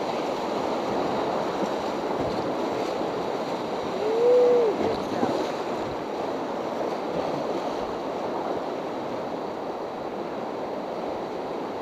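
Whitewater rapids rushing steadily around a raft. About four seconds in, a person gives one short shout that rises and falls in pitch.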